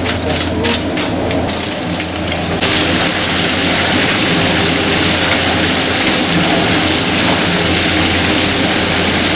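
Tap water splashing over crab pieces in a plastic colander for the first couple of seconds, then, from about two and a half seconds in, crab pieces deep-frying in a wok of hot oil: a dense, steady sizzle.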